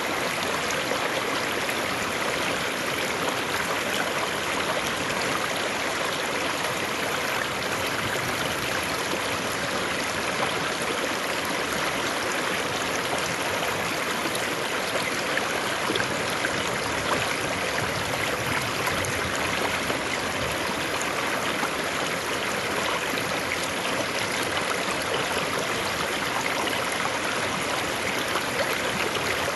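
River water flowing, a steady, even wash of sound with no breaks.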